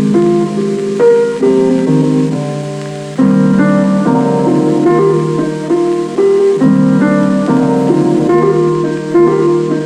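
Piano music played through a homemade Bluetooth speaker with two 4-inch Dayton Audio woofers and a Dayton Audio tweeter, in a kitchen. The notes change every half second or so, and there is little deep bass.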